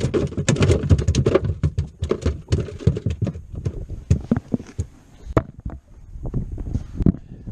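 Irregular knocks and thumps in a fishing boat, close together for the first second or so, then sparser clicks and taps.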